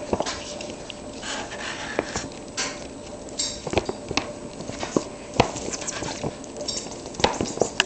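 Paper gift bag rustling and crinkling in irregular bursts, with sharp clicks, as a Siamese cat shifts and paws around inside it.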